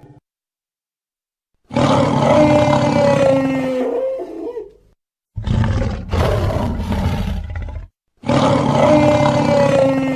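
Dinosaur roar sound effects played one after another: a long roar held on steady tones that wavers at its end, a shorter, rougher roar in about three pulses, then the first roar again.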